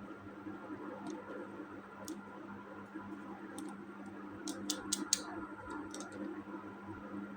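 Light scattered clicks and taps of plastic toy parts being handled, with a quick run of three or four sharper clicks about halfway through, over a steady low hum.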